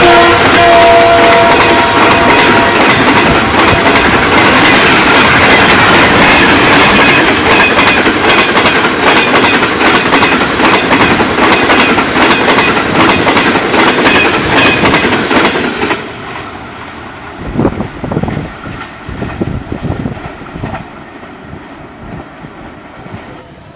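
Diesel-hauled express passenger train passing at speed. The tail of the locomotive's horn falls in pitch and ends in the first second or two, then comes the loud rush and rapid clickety-clack of the coaches' wheels over the rail joints. About two-thirds through, the noise drops suddenly as the last coach passes, and a few fading clacks follow as the train recedes.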